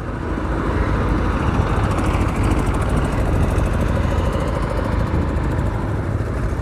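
Hero motorcycle's single-cylinder engine running at low speed over a rough dirt road, a steady low rumble mixed with the noise of the ride.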